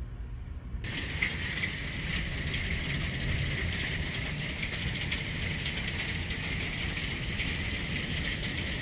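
Hail and heavy rain pelting down, a dense hiss full of small ticks over a low rumble. It starts about a second in, after a short quieter stretch.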